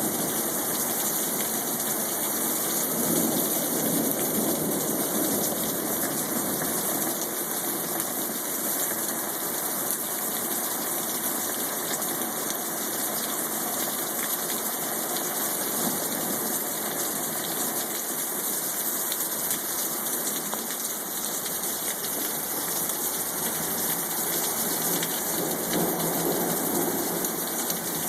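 Heavy rain pouring down steadily in a thunderstorm, with low swells of distant thunder near the start, about halfway through and near the end.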